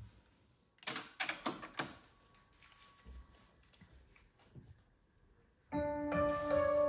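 Pioneer T-9090WRII cassette deck's transport mechanism clicking several times in quick succession about a second in as play engages, then a few faint mechanical ticks. Music from the tape starts near the end.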